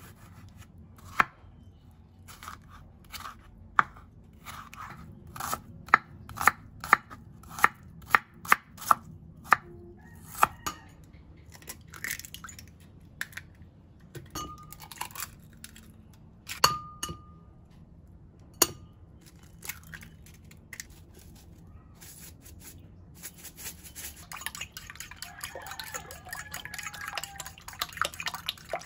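Kitchen knife slicing a tomato on a wooden chopping board: sharp chops, about two a second at their busiest. Midway, a few knocks and clinks against a ceramic bowl as an egg is cracked into it. Near the end, rapid clinking of a metal spoon beating the egg in the ceramic bowl.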